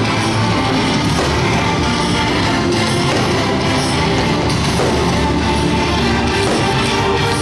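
Loud rock music with electric guitar playing over the ship's deck sound system.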